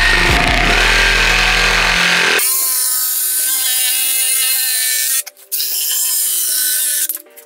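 Electric jigsaw cutting through a wooden mould board, its motor hum and blade rasp steady at first, then the low hum drops away about two and a half seconds in. The cutting stops briefly twice near the end.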